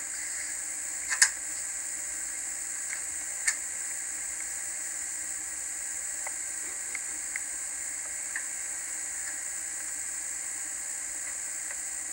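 Steady hiss of an old camcorder videotape recording, with a few sharp clicks: the loudest just over a second in, another about three and a half seconds in, and fainter ones later.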